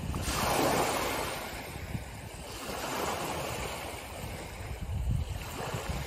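Small ocean waves breaking and washing up the shore: a steady rush of surf that swells about half a second in, eases off, and builds again near the end.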